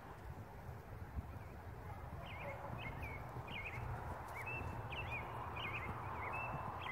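Small birds chirping, short high notes repeated about twice a second from about two seconds in, over a steady low outdoor rumble.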